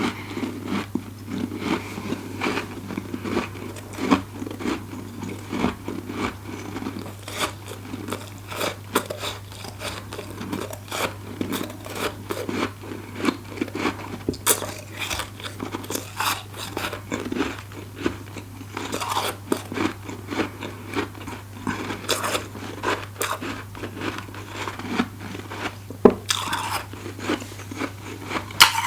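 Close-up crunching and chewing of bites of deep-freezer frost: dense, irregular crackles as the frost is bitten and chewed.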